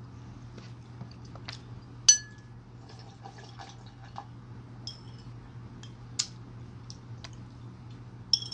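Eating samgyetang broth: a metal spoon clinking against a ceramic bowl, and the broth being sipped and slurped straight from the bowl, with small mouth clicks. One sharp ringing clink comes about two seconds in and another near the end, over a low steady hum.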